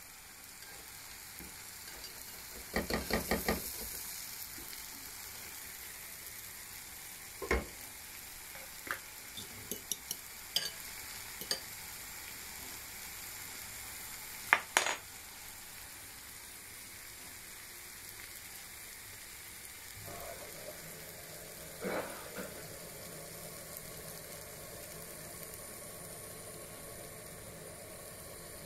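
Chopped tomatoes and spinach sizzling and simmering in a frying pan with a steady hiss. A quick run of clatters comes about three seconds in, and scattered knocks and clicks follow, the loudest about halfway through.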